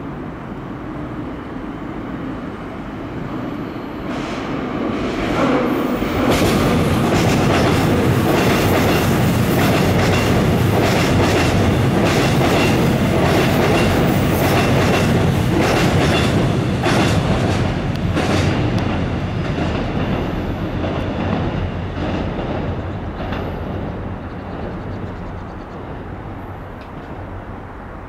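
Seoul Subway Line 7 train passing close by. The rumble builds over the first few seconds and stays loud for about ten seconds, with a rapid clacking of wheels over the rail joints, then fades away as the train moves off.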